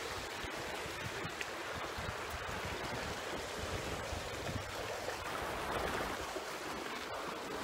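Steady rush of sea water in a concrete seawall channel mixed with wind, with an uneven low rumble.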